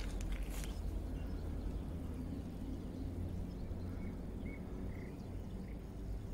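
Outdoor ambience: a steady low rumble with a few short, faint bird chirps about four to five seconds in.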